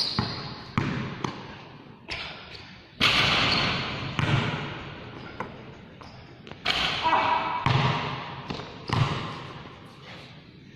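A basketball bouncing off the court floor and thudding as it is dribbled and shot, a series of irregular thuds, each trailing a long echo under the court's roof. The loudest hit comes about three seconds in.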